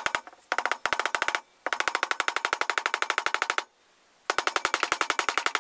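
Rapid, light metal-on-metal tapping, about ten blows a second, in several runs with short pauses, with a faint ring to each blow. It is a metal wedge being driven into the top of a hammer's wooden handle to lock the head on.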